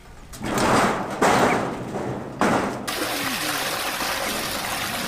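A thin sheet-metal toilet door banging and rattling shut in three loud knocks, then a steady rushing hiss from about three seconds in.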